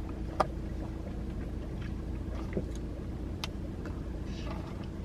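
Steady low rumble of a parked car's engine heard from inside the cabin, with a few faint clicks and a soft sip about four and a half seconds in as fountain Diet Dr Pepper is drunk.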